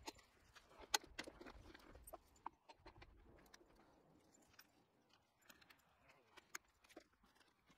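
Faint, scattered clicks and knocks of a plastic wheel and small metal axle pin being handled and fitted onto a pressure washer's frame, the sharpest click about a second in.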